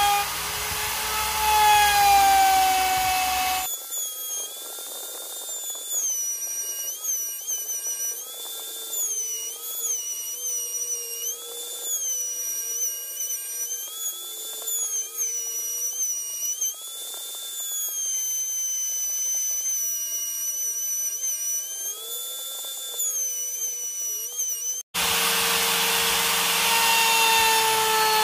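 Router in a router table running and cutting plywood, its motor pitch dipping again and again as the bit takes load. From about four seconds in the sound turns thin, with the low end gone, and near the end the full sound abruptly returns.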